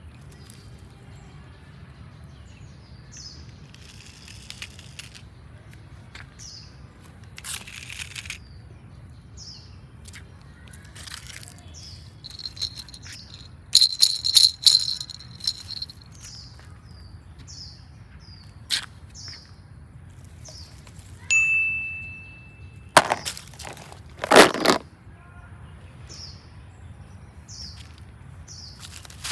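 A bird repeating a short falling chirp about once a second over a steady background, with rustling and crunching of dry leaves and twigs at intervals. A single bell-like ding rings out about two-thirds of the way through and fades over about a second, followed by two loud crunching rustles.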